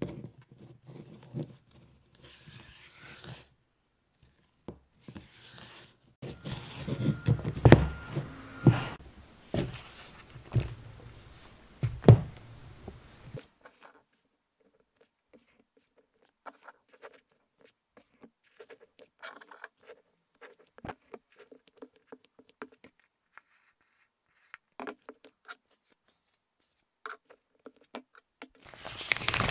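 Silicone spatula folding and scraping macaron batter around a plastic bowl in irregular strokes, with sharp knocks against the bowl, loudest in the first half. Later only sparse, faint sticky clicks as the batter is scraped into a silicone piping bag.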